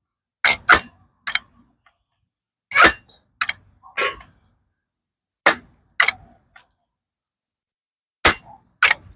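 Crosman 362 .22 multi-pump air rifle being pumped up to charge it: four strokes of the pump lever about two and a half seconds apart, each a pair of sharp clacks as the lever swings open and snaps shut.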